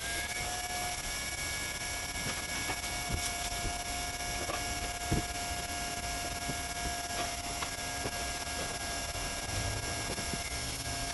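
Handheld hot-air welding guns running, a steady blower whine with hiss, with a light knock about five seconds in.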